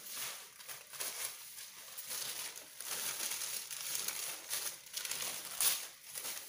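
Large sheets of thin pattern paper rustling and crinkling as they are gathered up and spread out by hand. The rustling is irregular, with a louder crackle about a second before the end.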